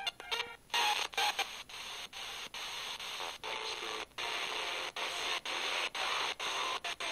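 FM static hissing from a Tecsun portable radio's speaker as it is tuned down the band in small steps, the sound dropping out briefly at each step, about twice a second.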